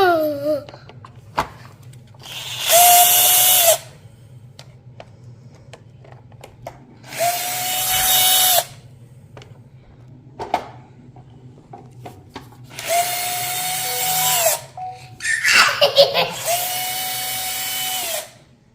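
Power drill running in four short bursts of a second or two each, at a steady speed, starting and stopping quickly.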